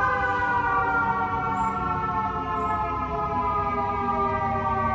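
Fire truck siren sounding, one long tone with many overtones that slowly falls in pitch, over low street-traffic rumble.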